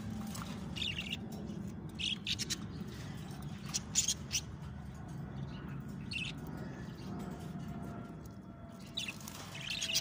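Caged budgerigars chirping: short, high, scattered chirps, with a cluster about two seconds in, the loudest about four seconds in, and more near the end, over a steady low hum.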